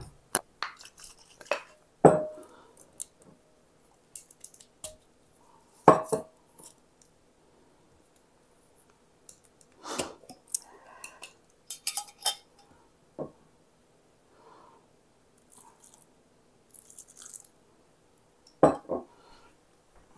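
Kitchen handling sounds: scattered sharp clinks and knocks of a glass jar and a spoon against a glass mixing bowl, with softer scraping as sugar-cookie dough is stirred.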